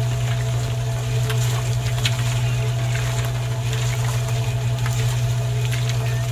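Small electric motor of a miniature model concrete mixer running, a steady low hum with faint scattered ticks over it.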